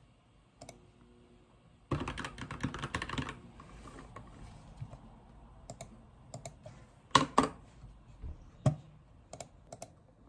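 Typing on a computer keyboard with tall sculpted keycaps: a fast run of keystrokes about two seconds in, then scattered single key presses, a few of them louder.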